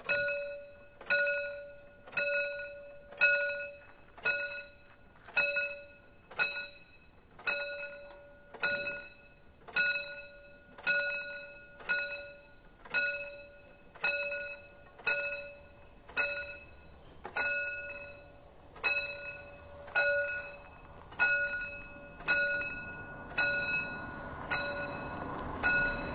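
Railway crossing pre-warning bell (předzváněč) of a mechanical barrier crossing striking about once a second, each strike ringing out and fading before the next. It warns that the barriers are about to be lowered. Near the end a rising rush of noise builds beneath the strikes.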